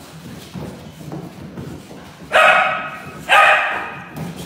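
A dog barks twice, about a second apart, with loud, full-toned barks.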